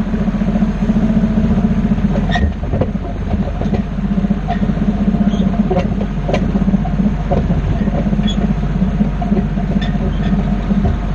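Tractor engine running steadily while it pulls a loaded wagon, with sharp scattered clanks and knocks from the wagon and the tools lying in its dirt load.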